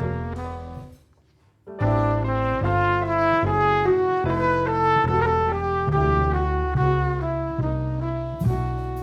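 Jazz quartet playing live: a trumpet plays the melody over piano, bass and drums. About a second in, the whole band stops together for a short break, then comes back in. A cymbal crash sounds near the end.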